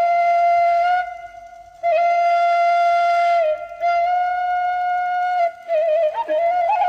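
Background music: a flute-like wind instrument plays long held notes with a slight waver. The melody breaks off about a second in and resumes, then moves more freely near the end.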